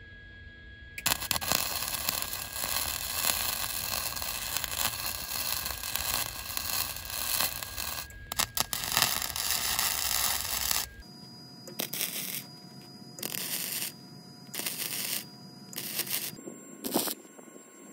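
Wire-feed welder arc crackling as a long bead is run on the steel go-kart frame, starting about a second in with a short break near the middle. Later it comes as a string of short welds, each about half a second to a second long.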